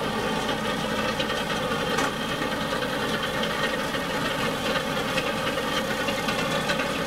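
An engine running steadily at an even pace, with a few faint knocks over the top.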